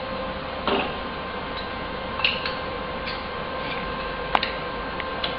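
Room tone with a steady electrical hum and a few light clicks and knocks scattered through it.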